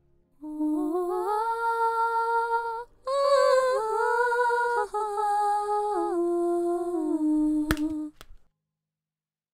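A voice humming a simple tune in three phrases, stepping up and down between held notes. A sharp click comes near the end as the humming stops.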